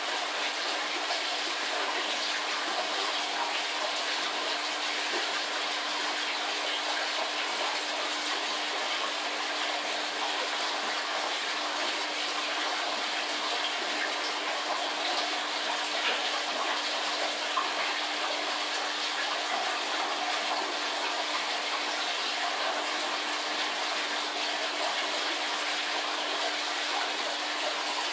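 Aquarium water and air bubbles running steadily, a constant rushing splash with a low steady hum beneath it.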